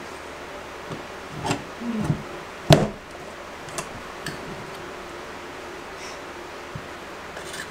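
Slip-on metal tub spout being pushed over a copper pipe stub and against the shower surround wall: a few small clicks and knocks, with one sharp knock about two and a half seconds in.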